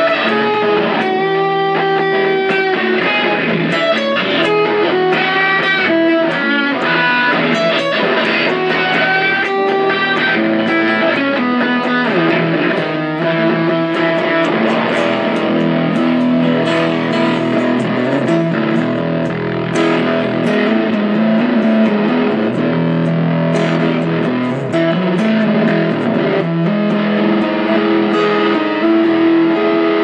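Electric guitar jam in E: single-note lead lines with bent, wavering notes in the first half, then longer held notes over a steady sustained E.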